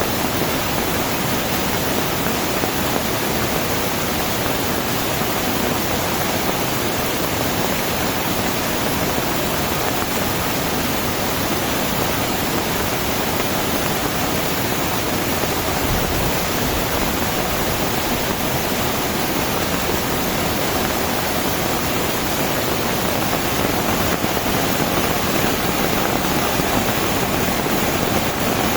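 Heavy tropical rain falling in a steady, unbroken downpour.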